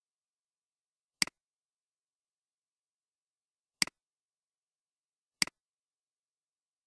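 Three computer mouse clicks, about 1.2, 3.8 and 5.4 seconds in, each a sharp tick followed at once by a softer one as the button is pressed and released. Between them there is dead silence.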